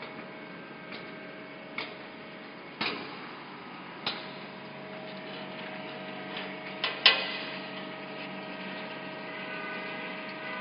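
Steady machinery hum in a metalworking shop, with several steady tones in it, broken by a handful of irregular sharp clicks and knocks; the loudest knock comes about seven seconds in.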